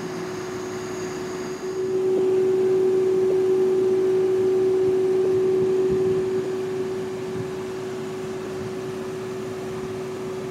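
Fendt Rogator 932 self-propelled applicator running, heard from inside its cab: a steady mechanical hum with a constant whine, which grows louder about two seconds in and eases back down about four seconds later.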